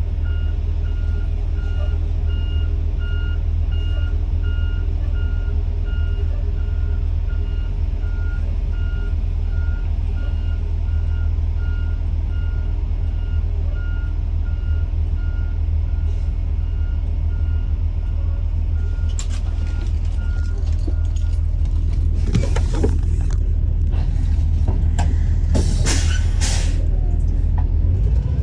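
Diesel school bus idling with its reversing alarm beeping steadily, the beeps stopping about three quarters of the way through. Then several loud hisses of released air, typical of air brakes, come in quick succession near the end.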